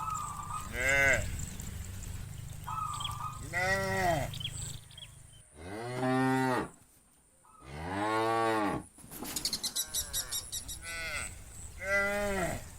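Cattle in a herd mooing one after another, about six calls, the two in the middle long and deep.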